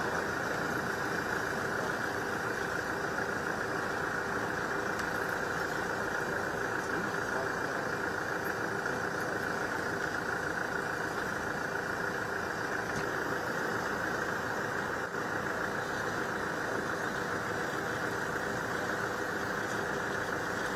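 A steady engine drone, like a vehicle or aircraft engine idling, holding one level throughout, with indistinct voices underneath.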